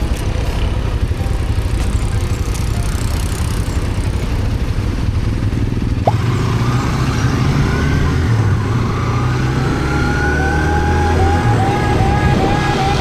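Motorcycle running under way with heavy low wind rumble on the microphone. In the second half a steady engine note comes in and a higher whine slowly rises in pitch.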